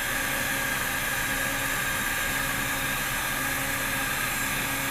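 Hot-air heat welding gun running steadily, its blower air rushing through a speed-weld nozzle as linoleum weld rod is fed into the routed seam. It makes an even hiss with a faint steady whine.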